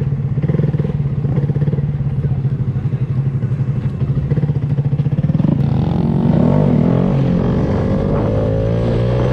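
Motorcycle engine running at a steady pace. About five and a half seconds in, a different pitched sound with a wavering tone takes over.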